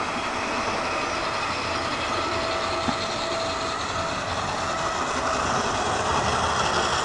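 Electric O gauge model train, a tank locomotive with coaches, running on metal track: a steady running noise of wheels on the rails and the electric motor, growing slightly louder near the end.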